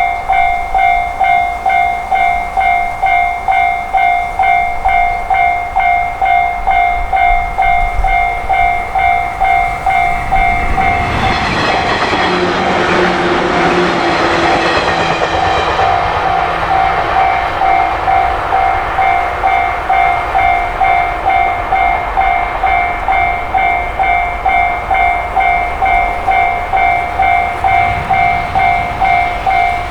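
Japanese level crossing warning bell ringing steadily, its strikes about two a second. A train runs through the crossing for about five seconds a little over a third of the way in, its rumble rising over the bell and then fading while the bell keeps ringing.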